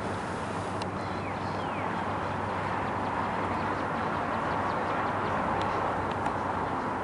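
Steady outdoor background noise, an even rush with a low hum under it, with a few short faint falling chirps about a second in and scattered faint ticks.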